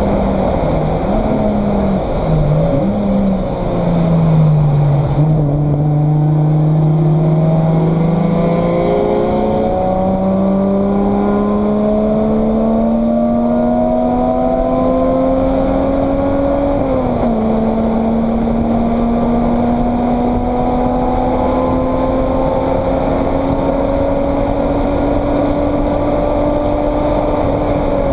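Race car engine heard from inside the stripped, caged cockpit, revs dipping and recovering through a corner, then pulling up slowly in pitch under load along the straight, with a sharp drop in revs at an upshift partway through and another drop at the end. Steady road and wind noise runs underneath.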